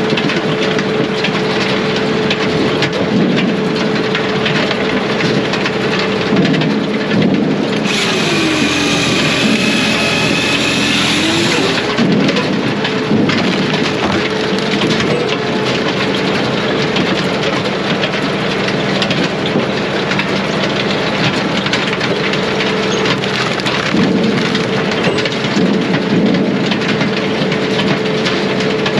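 Brute Force USA 18-24HD diesel firewood processor running steadily, with the noisy clatter of wood being cut, split and carried off. About eight seconds in, the engine's pitch sags for a few seconds, then comes back up.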